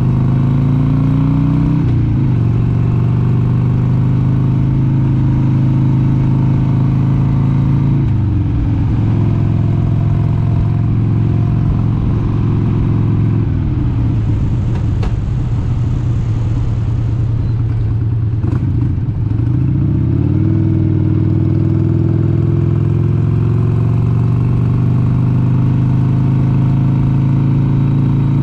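1996 Harley-Davidson XLH883 Sportster's air-cooled V-twin engine running under way. Its pitch dips and climbs again about two and eight seconds in. From about fourteen seconds it falls to a lower, rougher sound for several seconds, then rises steadily again.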